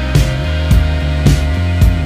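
Background rock music with a steady drum beat of about two hits a second.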